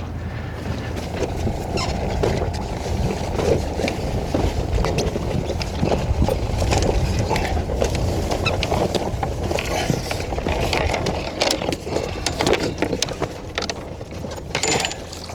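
Sailboat's inboard engine running steadily as the boat gets under way after casting off, with scattered clicks and knocks on deck.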